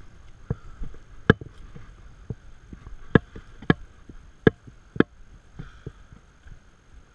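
Booted footsteps over loose rocks: irregular, sharp knocks and clacks of stone on stone as the walkers step across a boulder-strewn dry creek bed, the loudest four coming close together in the middle.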